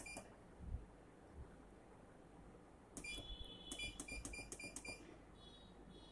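Keypad of an automatic wire cutting and stripping machine's control panel beeping as its keys are pressed: one short beep at the start, then about three seconds in a longer beep followed by a quick run of about six short beeps.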